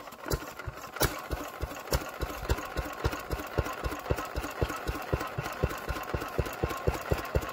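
Vintage single-cylinder stationary engine running at a steady idle, its exhaust beats coming about five a second.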